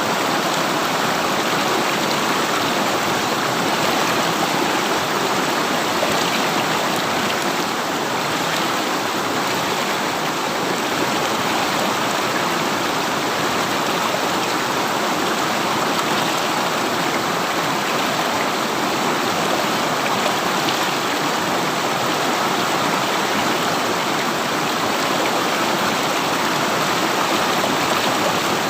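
River water rushing and flowing steadily, a continuous even noise with no breaks.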